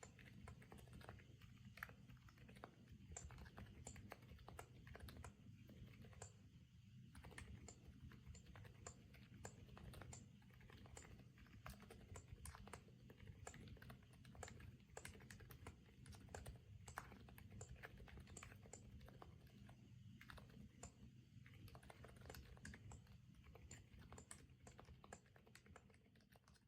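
Faint, rapid typing on a Stars-75 custom mechanical keyboard with an aluminium case, FR4 plate and foam mods: a continuous stream of keystrokes over a steady low hum.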